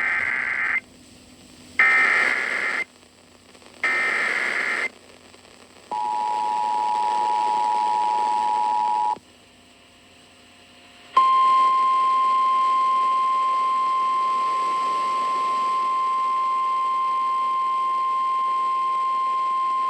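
Emergency Alert System signals over radio for a severe thunderstorm warning. First come three short bursts of buzzing data tones (the SAME header), each about a second long with a second's gap between them. Then the two-tone EAS attention signal sounds for about three seconds, and after a brief pause a single steady NOAA Weather Radio warning alarm tone is held for about nine seconds.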